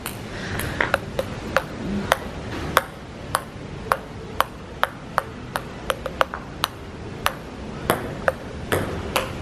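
Table tennis rally: the ball clicking sharply off the paddles and the table, about two hits a second at an uneven pace.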